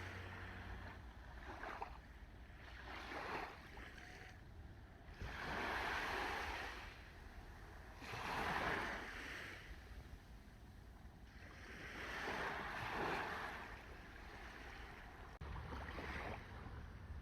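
Sea waves breaking and washing up on the shore, the surf swelling and falling away in surges every few seconds.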